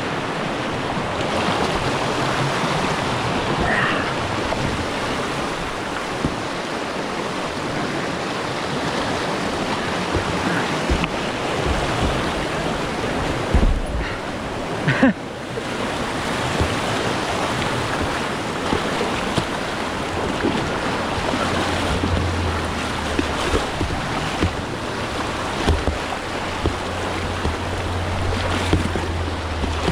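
Whitewater river rushing steadily around a kayak, with a single brief thump about fifteen seconds in.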